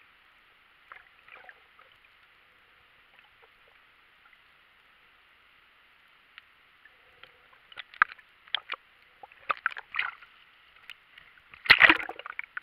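Underwater ambience heard through an action camera's housing: a steady hiss with scattered sharp clicks and knocks, which grow busier after about eight seconds and peak in a loud cluster of knocks near the end.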